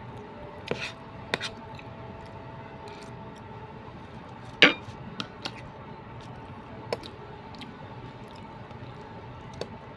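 Metal spoon scooping rice in a stainless steel pot: scattered light clinks and scrapes, the loudest about four and a half seconds in, over a faint steady hum.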